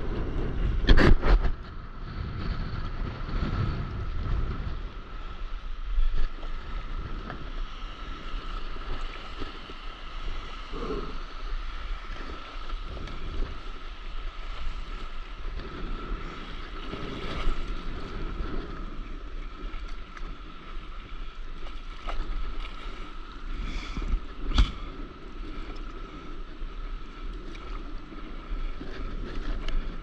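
Seawater lapping and sloshing around a stand-up paddleboard, with wind rumbling on an action camera's microphone. A few short, louder splashes stand out, about a second in and several more times later.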